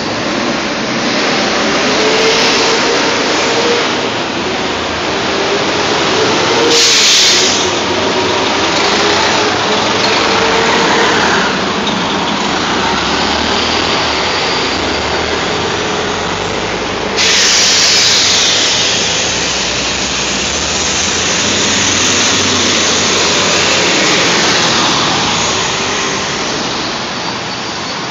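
New Flyer D60HF diesel-electric hybrid articulated bus pulling away from the curb, its drive running with a whine that rises and falls in pitch over steady street noise. A short burst of hiss comes about seven seconds in, and a louder hiss sets in suddenly at about seventeen seconds.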